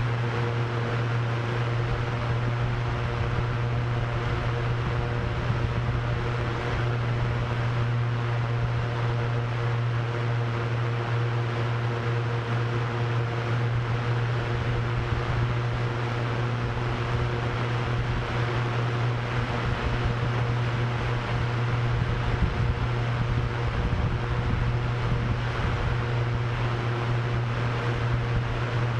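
Multirotor drone propellers humming steadily, a strong low hum with fainter steady tones above it, mixed with gusting wind that rushes and buffets underneath.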